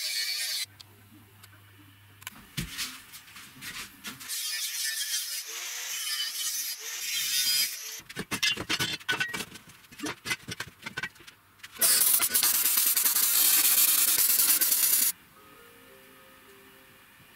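Metalworking sounds while cutting square steel tube. An angle grinder cuts the tube and stops within the first second. Hissing and scattered knocks and clatter of steel pieces follow. From about twelve to fifteen seconds there is a loud steady power-tool noise that cuts off suddenly.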